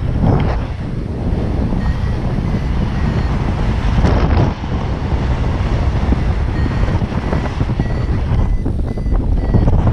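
Wind rushing over the camera microphone of a paraglider in flight, buffeting in gusts, loudest near the start and about four seconds in.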